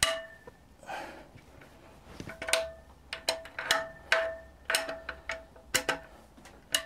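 Ratchet clicking in short, irregular strokes on a long socket extension while loosening a cylinder head bolt, each sharp click ringing briefly like struck metal.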